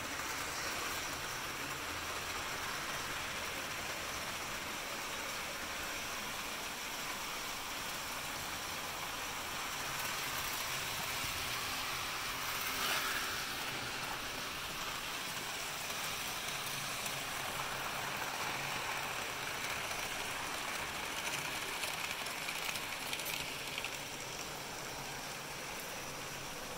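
Model trains running on the layout's track loops: a steady whirring hiss of locomotive motors and wheels on rail, swelling briefly about halfway through as a car passes close by.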